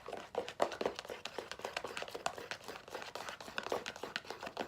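Fluffy slime mixture, shaving cream and colouring, being stirred: a steady run of small sticky clicks and crackles.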